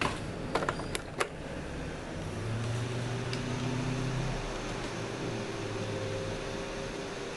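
Desktop computer powering on: a few sharp clicks in the first second, then from about two seconds in the case and CPU cooler fans start up into a steady hum and whir. The CPU cooler has just been cleaned of dust.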